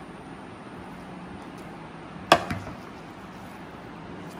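One sharp clink of tableware about two seconds in, with a smaller knock just after, as biryani is scooped with a serving spoon from a ceramic dish; otherwise only faint room tone.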